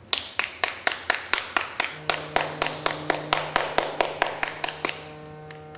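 Rhythmic hand clapping, about four sharp claps a second, fading out near the end. A steady low sustained tone joins about two seconds in.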